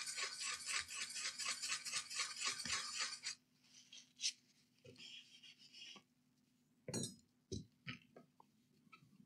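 A small brush scrubbing quickly back and forth over a circuit board, about six strokes a second, stopping about three seconds in. After it come a few light clicks and taps.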